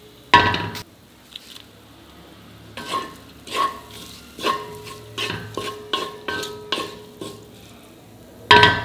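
A spatula stirring cauliflower in a kadai, knocking against the metal pan about a dozen times with short ringing clinks, the strongest about half a second in and near the end, over a faint frying sizzle.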